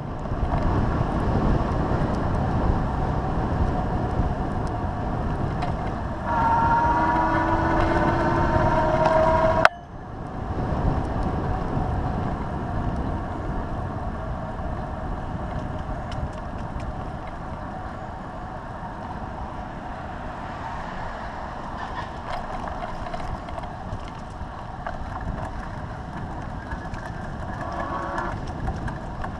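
Wind rushing over a handlebar-mounted action camera's microphone, with road noise, as a bicycle rides along a paved path. About six seconds in, a pitched whine rising slightly in pitch joins it for a few seconds and breaks off suddenly.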